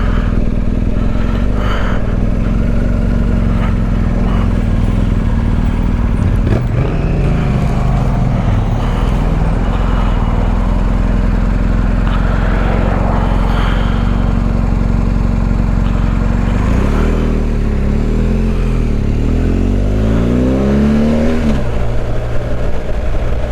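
BMW R1250GS Adventure's boxer-twin engine running steadily under way. Near the end the revs climb in a few rising pulls before settling.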